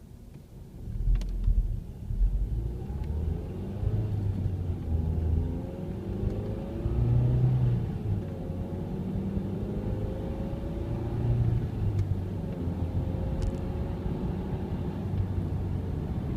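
Ford Mondeo Mk3 on the move: low engine and road rumble that starts about a second in, with the engine note rising several times as the car picks up speed.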